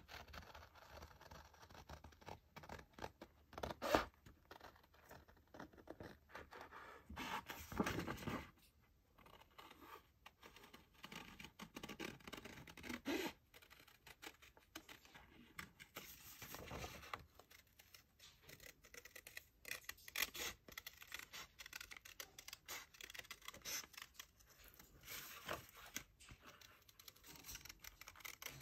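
Faint scratchy rubbing of an eraser worked back and forth over paper, in uneven strokes, with a couple of brief knocks about 4 and 8 seconds in.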